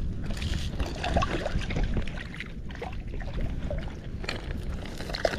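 Wind buffeting the microphone as a heavy, uneven rumble, with scattered small clicks and knocks.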